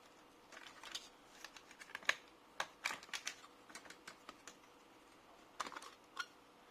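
Irregular light clicks and taps of small plastic and metal laptop parts being handled and pried apart during disassembly, in a flurry over the first few seconds and a short cluster near the end.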